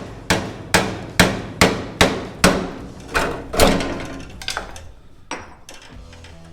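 A hammer striking the steel bodywork of a car, about a dozen blows at a steady pace of roughly two a second, each ringing briefly. The blows turn lighter for the last couple of seconds.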